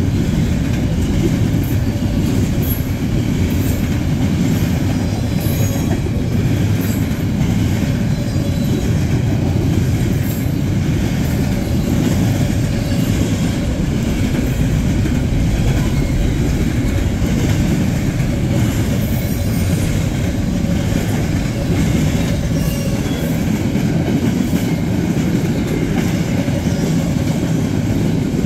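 Train rolling past at close range: a loud, steady rumble of rail cars with the wheels clicking over the rail joints.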